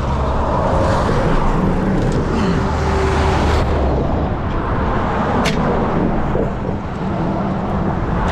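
Road traffic passing close by, a vehicle's low rumble strongest in the first three and a half seconds, with a single sharp click about five and a half seconds in.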